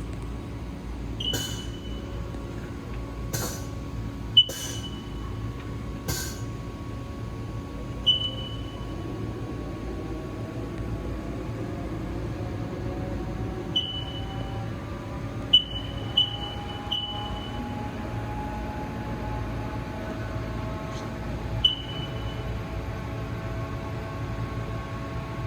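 Haas TL-1 CNC toolroom lathe running with a steady hum and faint motor whines that slowly shift in pitch. Several short high beeps sound at irregular intervals, typical of the control's keypad. A few sharp clicks come in the first few seconds.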